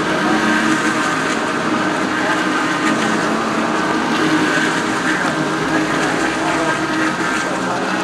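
A field of GT3 race cars on the opening lap, many engines at racing revs overlapping into one continuous, loud drone as the pack streams through a corner.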